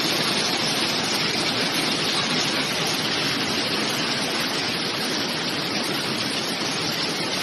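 Swollen, fast-flowing floodwater rushing in a river, a steady, unbroken rush of noise.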